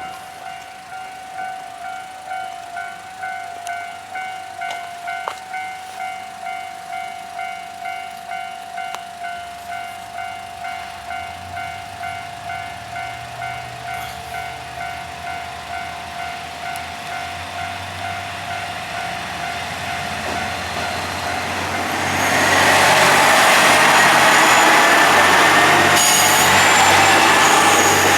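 Japanese level-crossing warning bell clanging in a steady rhythm as a Hamakaze diesel limited express approaches, its engine hum building from about ten seconds in. At about twenty-two seconds the train passes close by with a loud, steady rush of wheels on rail that drowns out the bell.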